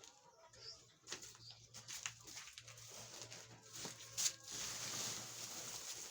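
Chickens calling softly, with several sharp knocks and a longer rustling or scraping noise starting about four and a half seconds in.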